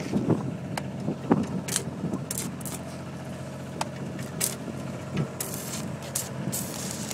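Short, irregular crackling bursts of a stick-welding arc being struck against a steel plate, each catching only briefly, over a steady engine hum. A couple of knocks come in the first two seconds.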